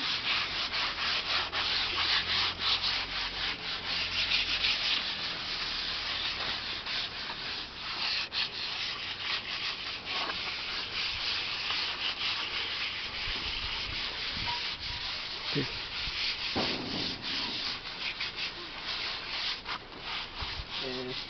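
Sandpaper scratching over wooden boards in quick, irregular rubbing strokes as the bed wood is sanded.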